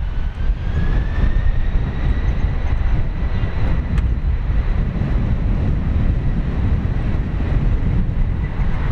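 Jet airliner's engines running loud and close, a heavy rumble with a high whine that rises in pitch over the first two seconds and then holds steady.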